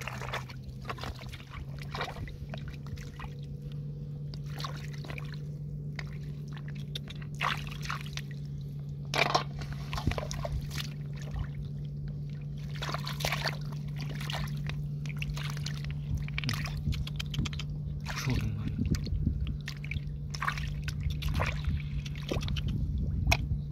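Hands sloshing and splashing in shallow muddy water, in many short irregular splashes, while groping for fish and snails. A steady low hum runs underneath.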